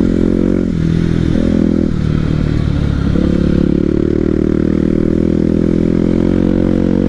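Honda XR 250 Tornado's single-cylinder four-stroke engine running under way, recorded from on the bike. The engine note drops and picks up again several times in the first three seconds, then holds steady and slowly rises in pitch as the bike speeds up.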